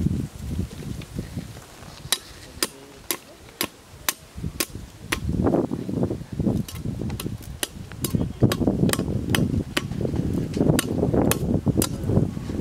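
Repeated sharp knocks, about two a second, as a wooden stake is hammered into the ground with a hand tool, starting about two seconds in, with low scuffing and rustling between the strikes.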